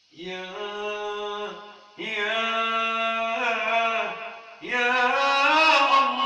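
Solo male voice chanting an Islamic ibtihal, drawing out the invocation 'yā' in three long held phrases with melodic ornaments and short breaths between them.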